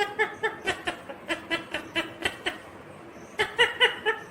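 Indian ringneck parakeet chattering in a quick run of short, laugh-like notes, about four a second. It pauses briefly, then gives another quick run near the end.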